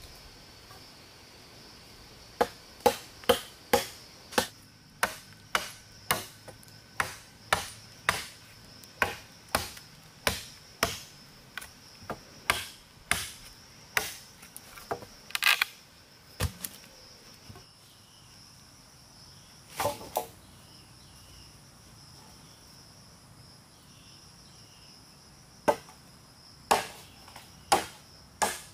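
Repeated chopping strikes of a blade into wood, about two a second, pausing for several seconds in the middle before starting again. A steady insect buzz runs underneath.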